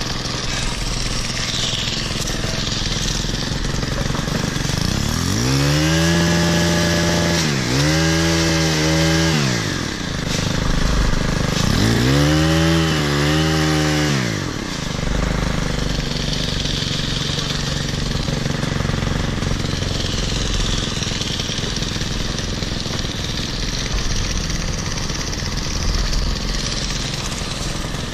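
Stihl KM90R's small 4-MIX engine driving an articulating hedge trimmer attachment: idling, then revved up to cutting speed three times for a couple of seconds each, the first two back to back, and dropping back to idle.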